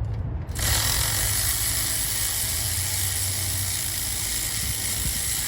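Pneumatic tool running steadily with a loud hiss of exhaust air, starting about half a second in, as a hub mounting bolt is backed out of a Chevrolet Impala's wheel hub and bearing assembly.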